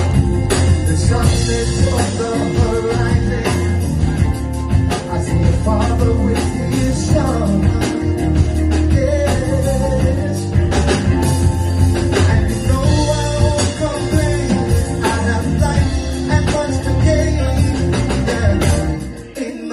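Live rock band playing, with a singer, electric guitar, bass and a drum kit keeping a steady beat. Near the end the heavy low end drops away and the music gets quieter.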